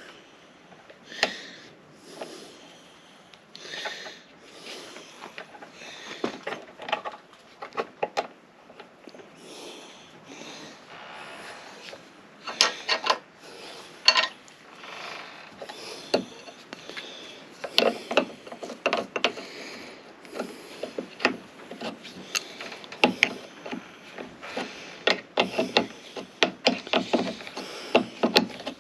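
Hand tools and metal parts clicking, knocking and scraping irregularly during hand work on a skid steer's hydraulic hose fittings. The clicks grow more frequent and louder in the second half.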